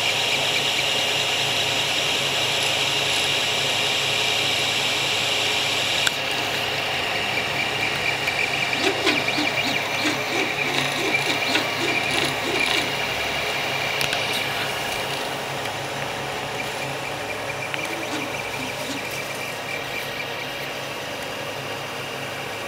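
Creality CR-10 3D printer running, its stepper motors and fans giving a steady high whine. About six seconds in the sound changes to a busier run of short ticks and a stuttering buzz as the print head moves.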